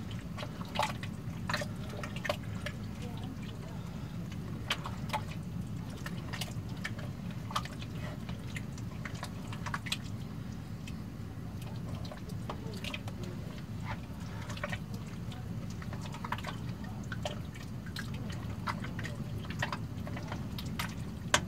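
Spoon stirring thick bean chili in a stainless steel stockpot: irregular wet squelches and light scrapes and clicks against the pot, over a steady low hum.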